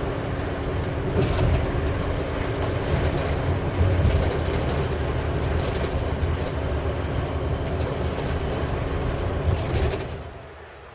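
Steady travel noise heard from inside a moving road vehicle: a low rumble and hiss with a constant hum. It drops away sharply near the end.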